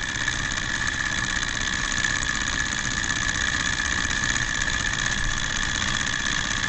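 Small alcohol-fired Stirling engine running steadily at speed, about 1,300 revolutions per minute, a fast even mechanical running sound with a steady high hum.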